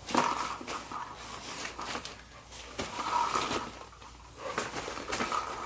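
Dog whining: three short, faint, high whines, with scattered clicks and rustling around them.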